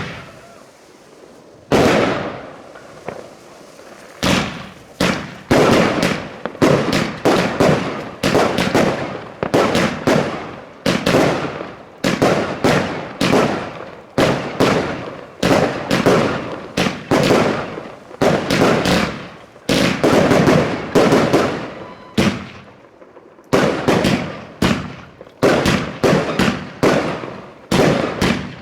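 New Year's Eve fireworks: a fast run of sharp bangs and crackles, several each second, each one echoing away, after a short lull near the start.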